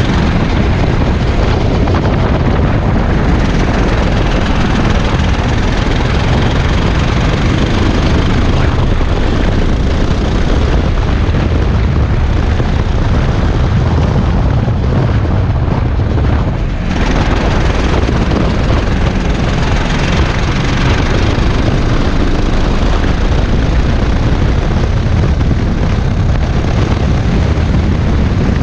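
Racing kart engine running at speed, heard from the kart itself, with heavy wind noise on the microphone. It dips briefly about two-thirds of the way through, then picks up again.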